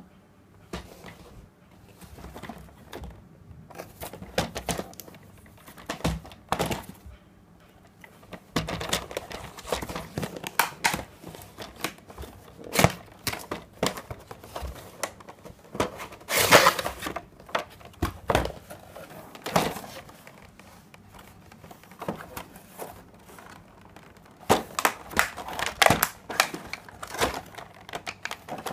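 A cardboard toy box being handled and opened by hand: irregular taps and thumps of the cardboard on a table, with scraping and crinkling bursts, the loudest a longer scraping rush about two-thirds of the way through. Near the end, the crinkle of the thin plastic sheet over the toy's tray.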